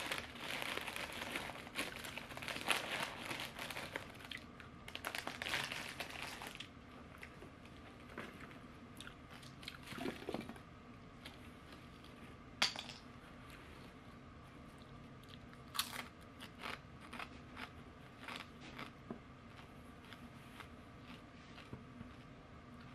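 Foil-lined potato chip bag crinkling and rustling as a hand rummages inside it, mixed with crunchy chewing of the chips, for about the first six seconds. After that, quieter scattered light taps and crunches as the chips are set down on a paper towel.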